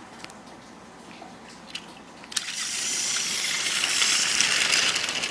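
A few faint clicks, then a sudden long steam-like hiss that starts about two seconds in and holds steady for over three seconds, standing in for a toy steam engine sneezing out smoke and steam.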